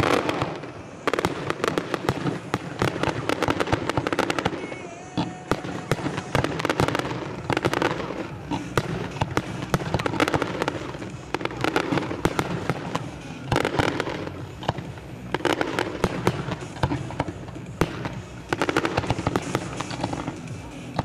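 Fireworks display: a dense, continuous run of bangs and crackling from many shells bursting in quick succession, with a few short lulls.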